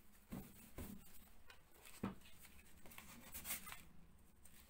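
Faint scratching and a few light taps of a gloved hand and small tool working at the edge of a hole in plasterboard, with a scratchier stretch near the end.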